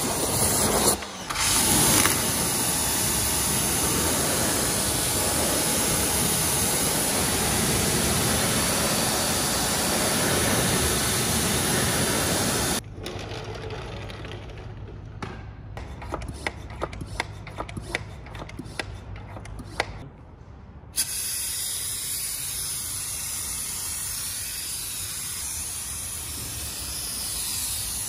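Pressure-washer jet spraying into a bucket of soapy water, building up suds. About halfway through it stops, giving way to quieter scattered clicks and knocks. Then a steady spraying hiss starts and runs through the last several seconds.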